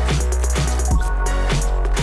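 Background music with heavy bass and a steady drum beat, about two hits a second.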